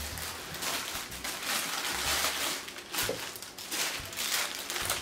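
Plastic packaging crinkling and rustling in irregular bursts as a packaged item is pulled from a cardboard box and handled.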